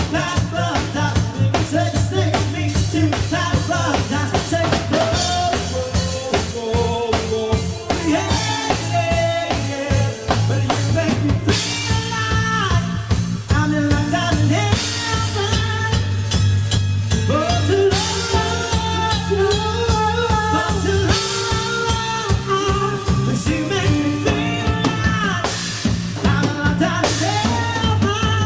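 Upbeat dance music with a steady drum-kit beat, bass and a singing voice.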